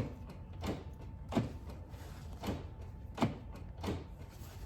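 Door lock knob and lock post of a car door being handled: about six short, sharp clicks at irregular intervals.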